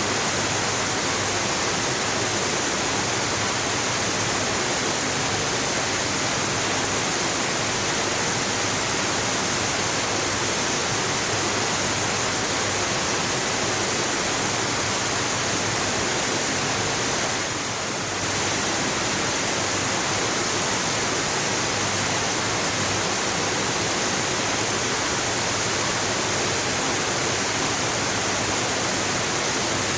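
Waterfall: a steady, dense rush of falling water, dipping slightly for a moment a little past halfway.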